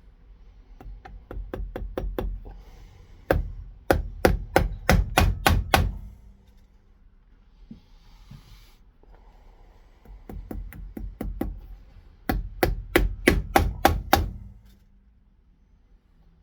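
Cobbler's hammer striking a boot in two runs of rapid blows. Each run begins with lighter taps and builds to hard strikes at about four a second.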